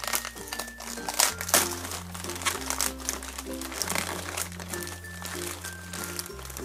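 A plastic poly mailer bag crinkling and rustling as it is pulled open and a plastic-wrapped item is drawn out of it, in many sharp crackles. Background music with a steady bass line plays underneath.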